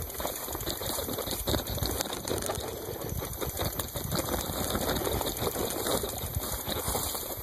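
Bicycle rattling and clattering over rough, overgrown ground: a rapid, irregular run of clicks and knocks over a low rumble.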